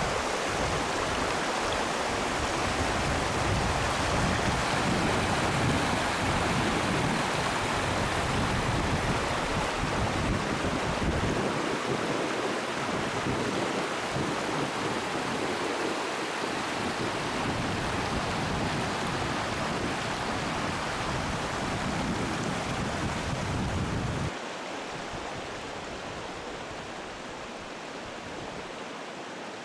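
Steady rushing noise of a shallow, stony river flowing, mixed with wind rumbling on the microphone. The rumble thins about eleven seconds in, and the whole noise drops abruptly to a quieter hiss about 24 seconds in.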